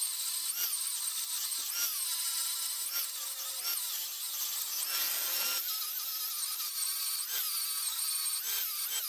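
Angle grinder with a flap disc grinding an aluminum weld bead down flush: a high whine with a hissing rasp, its pitch dipping and recovering several times as the disc bears on the metal and eases off.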